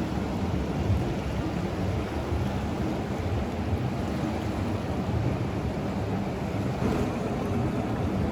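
Steady rushing noise of the fast-flowing Ganga's water, with wind buffeting the microphone.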